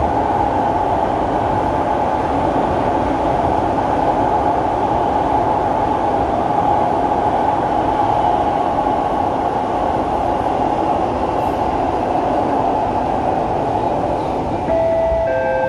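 SMRT C651 metro train running along the track, a steady loud rumble and rush of wheels and running gear. Near the end two steady tones sound one after the other, the second lower.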